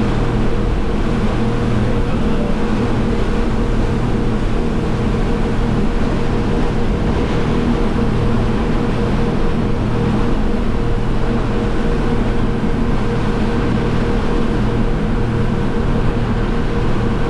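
Motorboat engine running steadily under way, a constant low drone, mixed with the even rush of water and wake along the hull.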